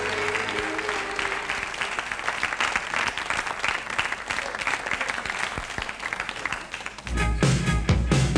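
Studio audience applauding, a steady crackle of clapping, with the last notes of music dying away at the start. About seven seconds in, loud music with a heavy bass beat starts suddenly.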